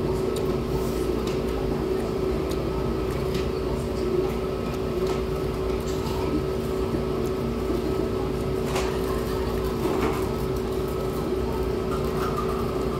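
A steady machine hum with a constant low drone, with scattered soft clicks and chewing noises from eating with metal chopsticks.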